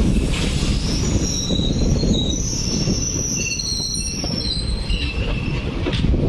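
Steel wheels of a moving Jan Shatabdi Express passenger train squealing as it rounds a curve: several high, wavering squeals at once that fade out about five seconds in, over the low rumble of the coaches running.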